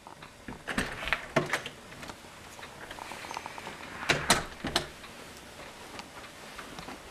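A door being handled: sharp clicks and knocks from the knob, latch and door in two clusters, about a second in and again around four seconds in, over a faint steady hiss.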